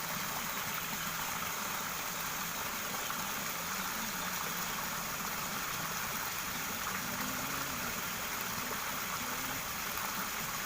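Steady rush of water pouring from an outflow spout into a ditch, an even hiss with no break, a faint low wavering hum underneath.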